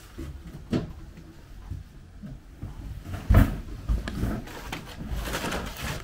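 Scattered knocks and handling noise, with a loud thump about three seconds in and a stretch of scraping or rustling near the end.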